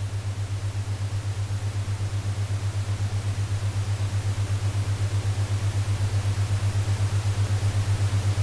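Binaural-beat tone: a steady low hum near 100 Hz pulsing evenly several times a second, laid over a steady white-noise hiss that grows slightly louder.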